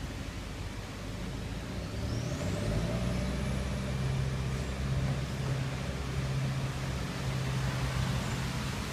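Motor vehicle engine running steadily, growing louder about two seconds in, with a thin high whistle that rises and then holds for a few seconds.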